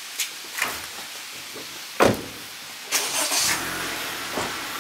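A vehicle engine starting with a sudden burst about two seconds in, then running steadily.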